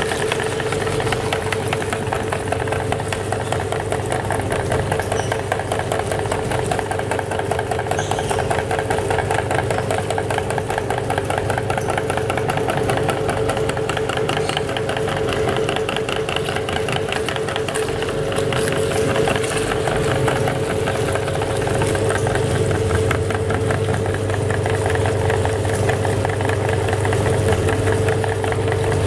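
Belt-driven cast aluminium meat grinder running steadily, its auger turning with a steady hum and a fast, even rattle.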